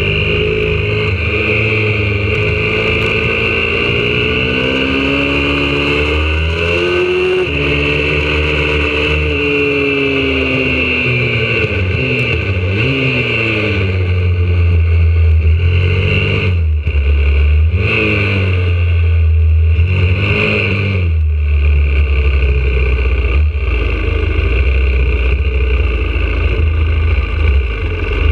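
YCF 125cc four-stroke pit bike engine, heard from a camera mounted on the bike, revving up and down with the throttle through the corners. In the second half the revs drop and pick up again several times, then settle low and steady near the end as the bike rolls along slowly.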